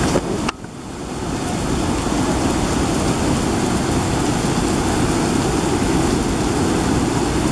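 Muddy river in flood, a fast torrent rushing under a bridge: a loud, steady rush of water that drops briefly about half a second in and builds back over the next second or so.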